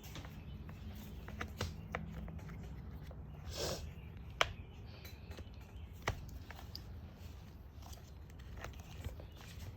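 Light scattered clicks and taps of an RC truck's motor and chassis parts being handled as the electric motor is set into place, with a sharper click about four and a half seconds in and another about six seconds in.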